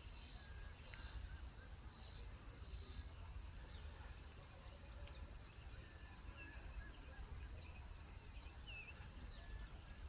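Steady high-pitched insect drone, with a faint repeated note about twice a second for the first few seconds and scattered faint short bird chirps later on.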